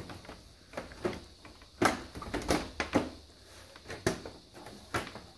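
Metal computer-case side panel clacking and knocking as it is handled and pushed into place, about half a dozen sharp separate knocks.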